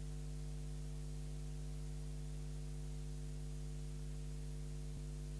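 Steady electrical mains hum with a ladder of overtones under a constant hiss, with no crowd or game sound, the empty audio of a videotape playback. A faint click comes near the end.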